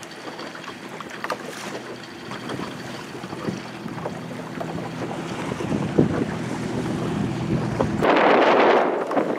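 A boat engine hums steadily, with water splashing and knocking against the hull. About eight seconds in, loud wind buffeting on the microphone takes over.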